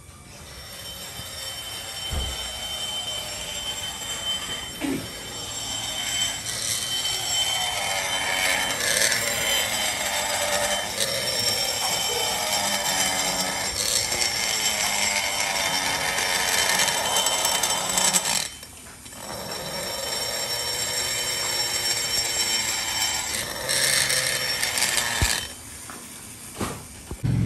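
Small hand-held electric rotary grinder running at high speed as it ports a motorcycle cylinder head, its whine wavering in pitch as the bit loads up in the port. It stops briefly about two-thirds of the way through and again near the end.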